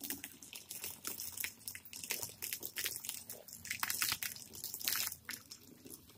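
Water from a garden hose splashing and spattering onto wooden deck boards in an uneven patter.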